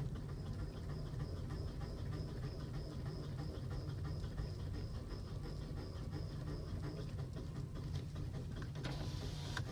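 A 2012 Toyota Aqua hybrid coasting with the accelerator released: road and tyre rumble heard inside the cabin, with a fast rattling (kata-kata) noise from the left or centre of the car and a faint high steady whine that fades about seven seconds in. The rattle is the abnormal noise that comes while coasting and stops when the brake is pressed, cause unknown to the owner.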